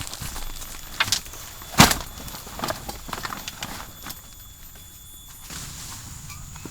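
A few sharp knocks and taps, the loudest about two seconds in, with fainter ones after, over a faint steady high tone that stops shortly before the end.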